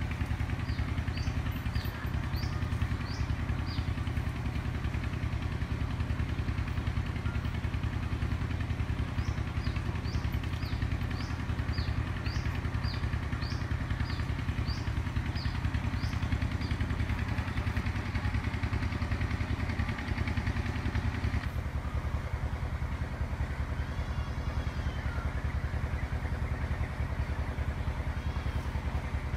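A small engine running steadily with a low, even drone. Short high chirps come in runs near the start and again through the middle.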